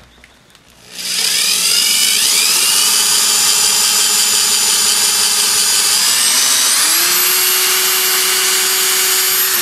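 Power drill boring a hole through hard material. The motor starts about a second in, its whine rises in pitch twice as it speeds up, and it winds down at the end.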